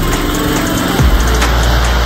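Background hip-hop-style music with deep bass notes that slide downward, one about a second in.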